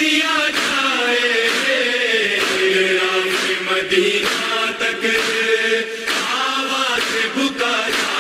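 A man's voice chanting a slow devotional recitation in a melodic line, with long held notes that bend gradually in pitch.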